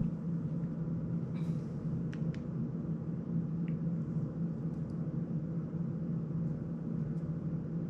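Steady low room hum, with a few faint clicks of plastic drone prop guards being handled in the first half.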